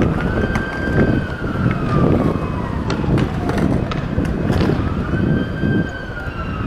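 Emergency vehicle siren on a slow wail: it rises quickly, holds, then slowly glides down, twice, over a steady rumble of city noise.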